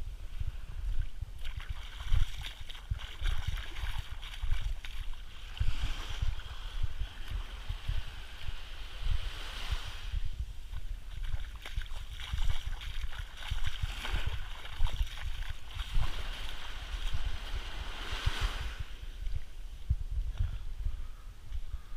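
Small waves lapping onto a sandy shore, their wash swelling and fading every few seconds, over a low, uneven rumble of wind on the microphone.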